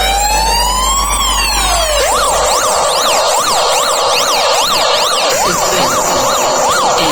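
Electronic siren effect played loud through a DJ speaker system during a sound check: a slow wail rising and falling that switches about two seconds in to a fast yelp of about two sweeps a second. A low bass drone underneath stops shortly after the switch.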